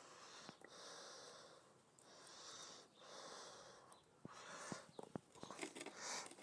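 Faint, rhythmic rasping swishes, about one a second, with a few small ticks: potting soil and saffron corms being shaken through a garden sieve.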